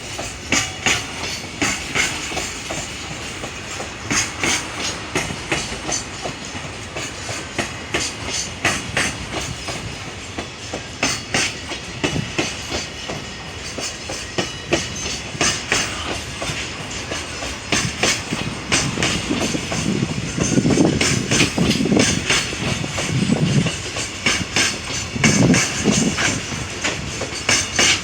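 Freight train hauled by a JR Freight EH500 electric locomotive running past, its wheels clacking over rail joints in a quick, continuous run of clicks. Heavier rumbling comes in about two-thirds of the way through.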